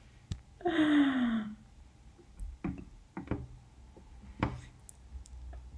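A short breathy vocal sound, falling in pitch, about a second in, like a sigh or a drawn-out 'hmm'; then a few soft, separate clicks and light knocks in a quiet small room.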